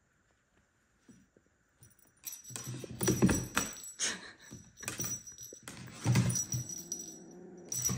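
Small jingle bell on a feather wand cat toy jingling in repeated shakes as a kitten grabs and carries it, starting about two seconds in, with soft knocks among the jingles.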